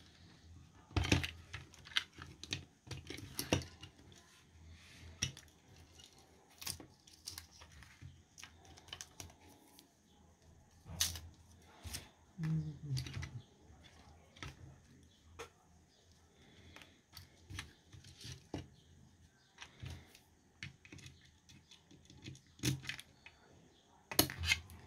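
Scattered small clicks and light knocks of plastic being handled: cable connectors unplugged from the circuit board of an IKEA VINDRIKTNING air-quality sensor and its plastic case halves set down on a work mat.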